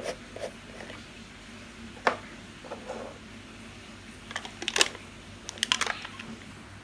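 Plastic jar of Scarlett body scrub being opened by hand: scattered clicks as the screw lid is twisted off, then two quick flurries of crinkling clicks as the clear plastic inner seal is peeled back.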